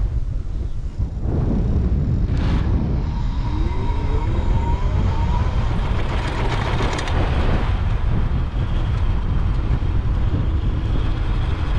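Wind rushing over the microphone and road noise from a home-built electric motorcycle under way, with the electric motor's whine rising in pitch a few seconds in as it speeds up.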